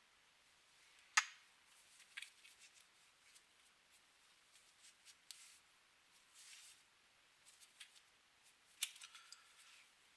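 Scattered small clicks and short rustling, scraping noises of hard objects being handled, with a sharp click about a second in and another near the end; no vacuum motor running.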